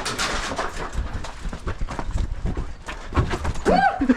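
Quick, irregular footsteps with rustling and gear handling as an airsoft player moves over rough ground. Near the end comes a short cry that rises and falls in pitch.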